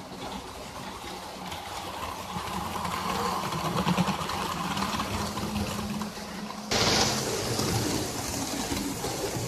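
Model train running on sectional track: a low electric motor hum with fine regular clicking of wheels over the rails. It grows louder as the train passes at about four seconds. At about seven seconds the sound changes abruptly to another running model train, louder and hissier.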